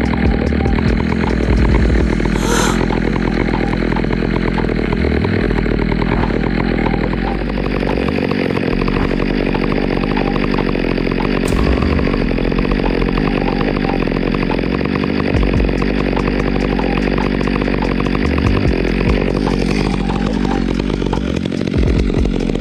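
Stihl two-stroke chainsaw running steadily under load, cutting into a tree.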